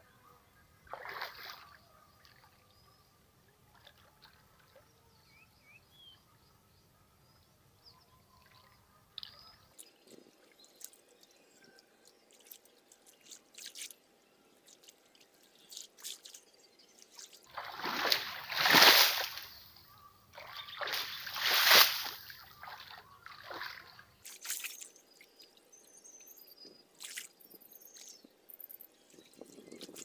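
Hands splashing and sloshing in shallow muddy water while groping for a fish by hand, with scattered small splashes and two much louder splashes a few seconds apart a little past the middle.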